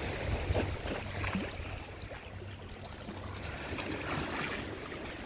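Wind rumbling on the microphone over shallow water lapping and splashing gently at the water's edge.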